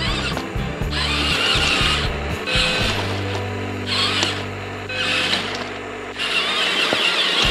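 Small electric motors and gearboxes of an RC bulldozer whirring in short bursts of half a second to a second, with a wavering high whine as the speed changes, over background music.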